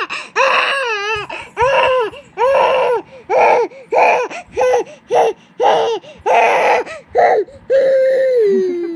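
Infant crying in a string of short, high-pitched wails, about one every half second, ending in one long wail that falls in pitch.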